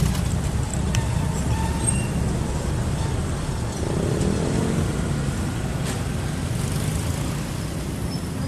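Steady low rumble of wind on the microphone and road noise from riding an e-bike.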